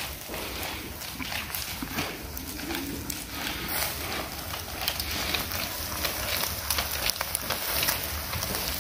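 Meat kebabs sizzling on skewers over a charcoal grill, with frequent small crackles from the coals and a low rumble underneath.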